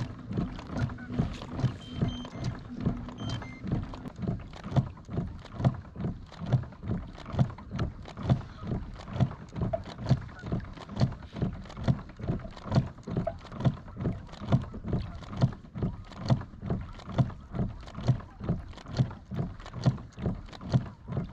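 Water slapping against a boat's hull in a steady rhythm, about two slaps a second, as the boat trolls through light chop. A low steady motor hum runs under it for the first few seconds and then stops.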